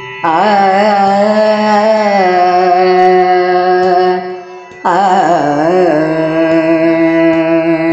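A woman singing a Carnatic song in raga Bageshree: two long phrases, each opening with quick ornamental wavering in pitch and settling into a long held note, the second starting about five seconds in.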